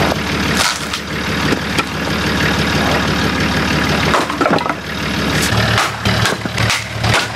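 Several sharp chops of a Fiskars X21 splitting axe striking and splitting firewood rounds on a chopping block, over the steady idle of a vehicle engine.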